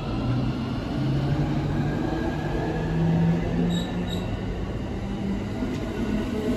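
JR West 683 series electric train's Mitsubishi IGBT-VVVF inverter whining as the train pulls away, the tone stepping upward in pitch as it accelerates, over wheel and running noise.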